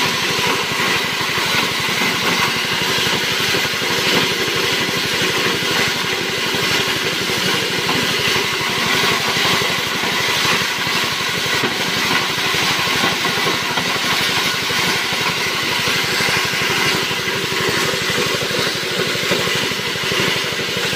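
JG 125 chopper running steadily, driven by a small petrol engine, its blades chopping feed material that pours out of the chute. The engine's running note and the cutter's dense whirring noise hold steady with no change in speed.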